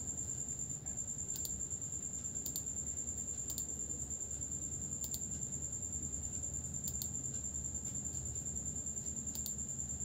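Computer mouse clicking now and then, about eight clicks spread over ten seconds, over a steady high-pitched electrical whine and low background hum.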